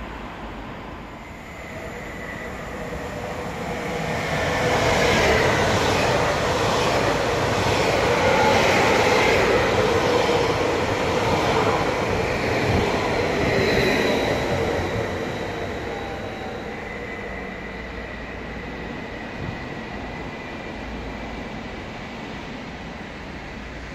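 Electric commuter train (Sm5 multiple unit) running past close by. Its wheel rumble and a steady high whine build up over the first few seconds, stay loud for about ten seconds, then fade away.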